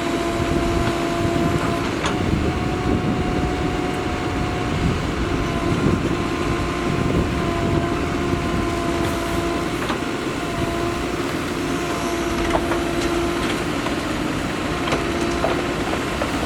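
Diesel engine of a Mahindra Earthmaster SX backhoe loader running steadily while working, with a steady whine over the engine rumble.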